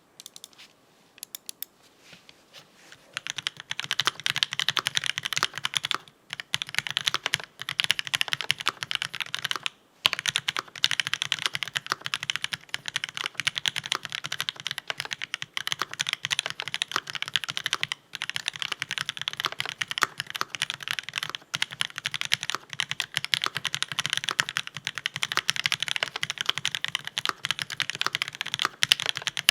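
Continuous typing on a MONSTAR XO V3 mechanical keyboard with a brass plate, Marshmallow switches and GMK Bleached ABS keycaps: a fast run of keystroke clacks. It starts with a few scattered presses and settles into a steady rapid stream with a couple of brief pauses.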